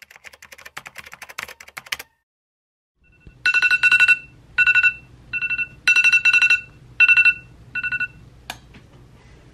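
Quick typewriter-style key clicks for about two seconds, then a phone alarm ringtone from about three and a half seconds in: groups of rapid high beeps on two pitches repeating for about five seconds. A single sharp click cuts it off near the end, as the alarm is stopped.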